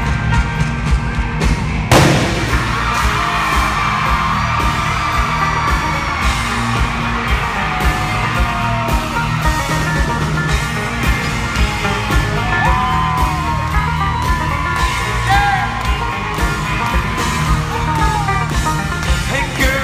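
Live country-rock band playing a song's instrumental intro with a steady beat. A loud bang hits about two seconds in, and the crowd whoops and yells over the music from midway on.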